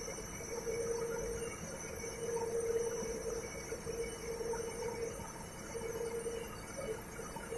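IFB Elina washing machine's motor running in spin with a steady whining hum that swells and fades about once a second. The owner puts the noise down to a worn motor bearing, or a motor that needs replacing.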